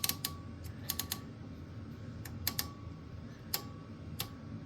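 Old oscilloscope's rotary selector knobs clicking through their detents: about ten sharp clicks at irregular intervals, some in quick pairs.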